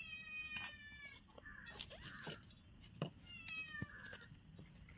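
Very young kittens mewing: a long, high mew that falls slightly in pitch at the start, and a shorter one about three seconds in, with soft rustling and a few light taps in between, the sharpest just before the second mew.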